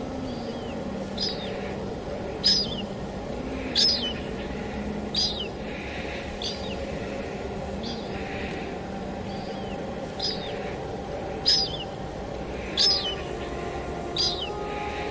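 Steady rainfall, with a bird calling over it: a short, high, falling chirp repeated every second or so, louder than the rain.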